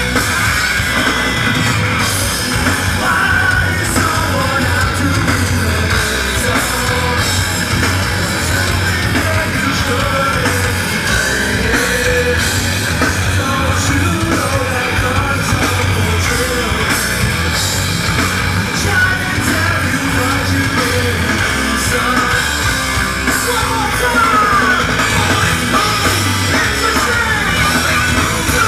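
Rock band playing live, with electric guitars and drums under a vocalist yelling and singing into the microphone.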